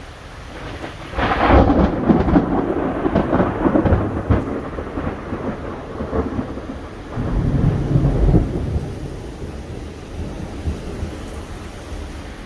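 Thunder: a sudden crackling clap about a second in that rumbles on for a few seconds and fades, then a second low rumble a few seconds later, over a steady hiss of rain.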